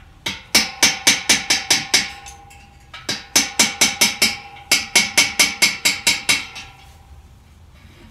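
Rapid hammer blows on the top fitting of a stainless-steel beer keg, about five a second in two runs, the keg ringing with a steady metallic tone between strikes. The hammering is work to free the keg's spear, its valve and dip tube.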